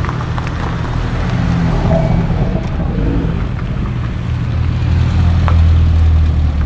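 BMW M car's engine and exhaust running at low revs with a steady low rumble, growing louder about four and a half seconds in as the car comes closer.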